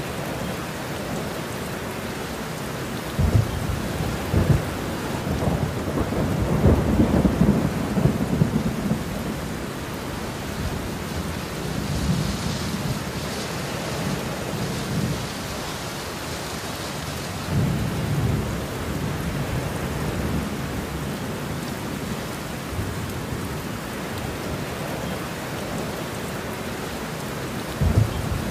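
Heavy rain falling steadily with rolling thunder: a long rumble a few seconds in, a shorter one past halfway, and another starting at the very end.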